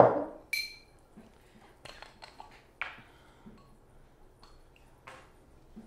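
A sharp knock, then about half a second in a short clink with a brief ringing tone, typical of glass, followed by faint scattered taps and clicks: a glass bottle and a glass measuring cup being picked up and handled on a kitchen counter.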